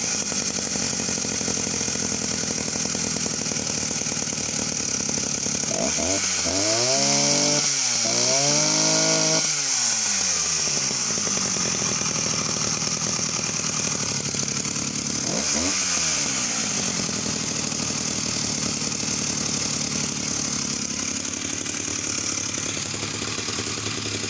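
Husqvarna E70 vintage two-stroke chainsaw running, revved up and back down twice around six to ten seconds in and once more around sixteen seconds, idling in between. The saw, sold as non-running, is running after start-up with the choke off.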